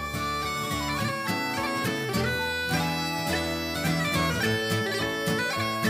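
Background music: a bagpipe tune, the melody stepping quickly between notes over held lower notes.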